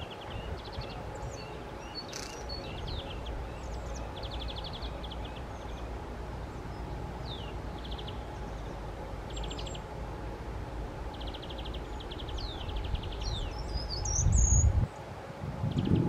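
Small birds calling: repeated thin, high, falling notes, typical of a treecreeper, among short rapid high trills. A gust of wind rumbles on the microphone near the end.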